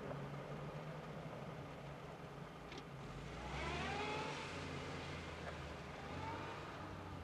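Jeep Wrangler's engine revving under load as it climbs a hill. Its pitch rises sharply about three and a half seconds in, and again more briefly near six seconds, over a steady low hum.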